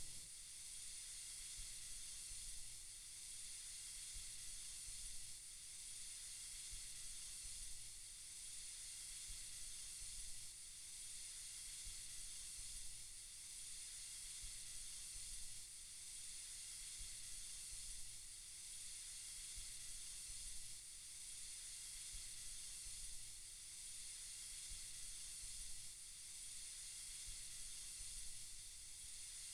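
Faint, steady white-noise hiss, swelling slightly about every two and a half seconds.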